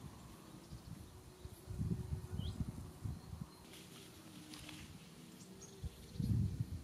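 Wind buffeting the microphone in low, irregular gusts, about two seconds in and again near the end, with a faint short bird chirp between them.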